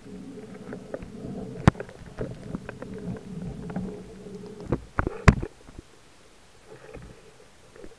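Underwater sound during a spearfishing dive: a steady low hum with scattered clicks. About five seconds in comes a cluster of sharp, loud knocks, after which it goes quieter.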